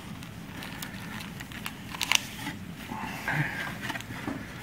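Wrapper crinkling and scattered light clicks as gloved hands pull a Magic: The Gathering Legends booster pack out of its cardboard display box, with the sharpest click about two seconds in.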